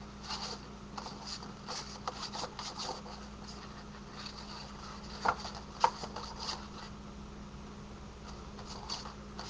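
Paper rubbing and scraping as a sheet of patterned cardstock is slid back and forth inside the slot of a handheld craft punch. Two sharper clicks come a little past the middle.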